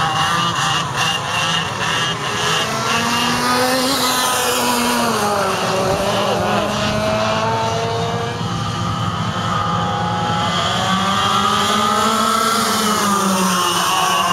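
Several 100cc two-stroke racing kart engines with expansion pipes running together as the pack circulates. Their overlapping pitches rise and fall with throttle, dipping briefly near the end before climbing again.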